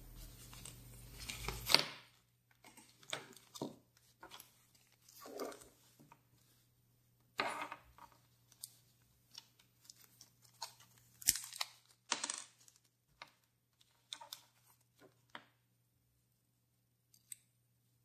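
Small clear plastic zip-lock parts bag rustling and crinkling in the fingers in short, scattered bursts, with a few light clicks of small lighter parts being handled.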